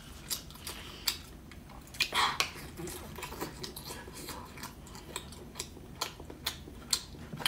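A person chewing seafood close to the microphone: wet mouth sounds with scattered short clicks and crackles.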